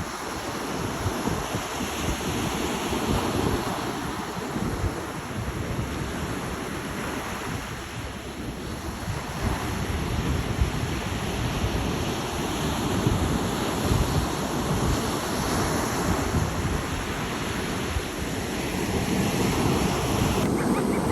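Ocean surf washing in, with gusty wind buffeting the microphone; a continuous rush that swells and eases over several seconds.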